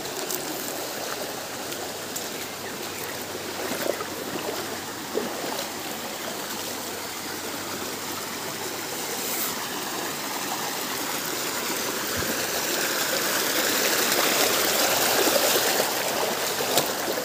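Stream water running over rocks, an even rushing that grows louder through the second half.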